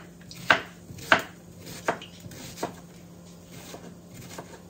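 Kitchen knife slicing an onion into half-moons on a cutting board: single sharp knocks of the blade hitting the board, about one a second, four clear ones in the first three seconds and fainter ones after.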